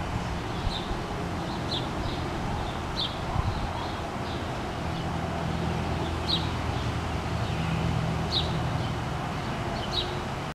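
A bird giving short, high chirps about six times, a second or two apart, over a steady low rumble.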